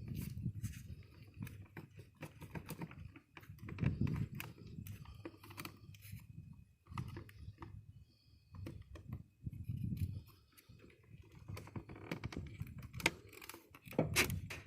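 Scattered plastic clicks, knocks and light rattling from hands working a car door's trim panel and unlatching its wiring connectors, with a few dull low thumps in between.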